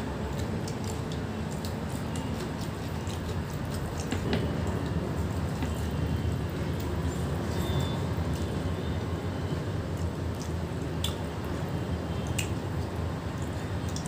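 Eating by hand: fingers mixing rice and dal, and chewing, heard as small squishes and scattered clicks over a steady low background rumble.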